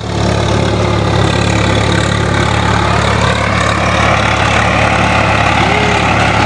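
Swaraj 855 FE tractor's three-cylinder diesel engine running steadily under load as it pulls a PTO-driven rotary tiller through the soil.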